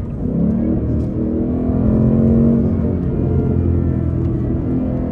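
Ford Mustang GT's 5.0-litre V8 exhaust under way, heard close to the tailpipe: the revs rise over the first two seconds or so, then ease back a little and hold steady.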